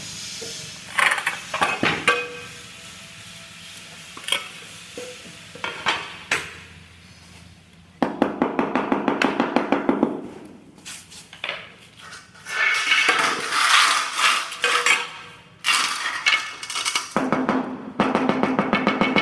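Ceramic tiles and metal tools clinking and knocking during tile laying, with runs of rapid even tapping, about six strikes a second, of the kind used to bed tiles into mortar.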